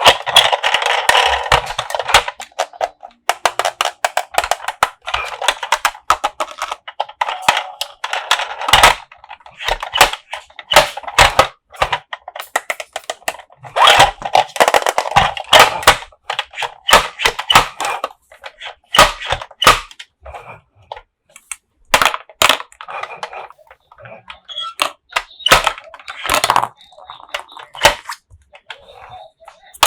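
Toy packaging being handled and opened close to the microphone: stretches of plastic crinkling, with many sharp clicks and taps throughout.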